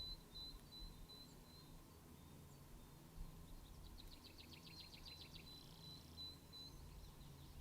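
Faint forest birdsong: a small bird repeats a short high note about three times a second, and a rapid trill of about ten notes a second comes in near the middle, over faint low rumble.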